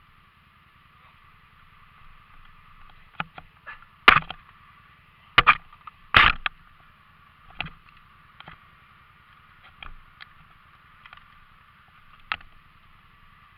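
ATV engine running steadily, with three loud, sudden thumps about four to six seconds in and a few lighter knocks.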